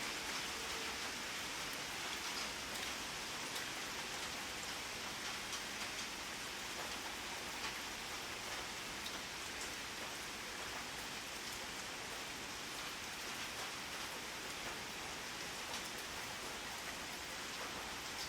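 Steady rainfall: a dense, even hiss of rain on a surface, with scattered individual drop ticks.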